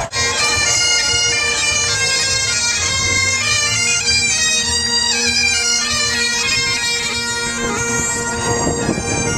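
Great Highland bagpipes played by a marching pipe band: the steady drones hold under the chanter's moving melody.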